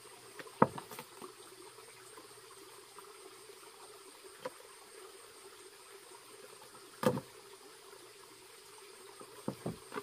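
A few sharp knocks as a bunch of green bananas is handled and chopped with a machete: a loud strike about half a second in, another about seven seconds in, and a run of smaller knocks near the end. A steady insect drone runs underneath.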